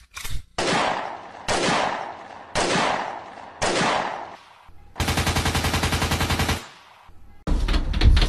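Gunshot sound effects: four single shots about a second apart, each dying away with an echo, then a burst of rapid machine-gun fire about five seconds in that cuts off suddenly. Near the end a different loud clattering with a low rumble begins.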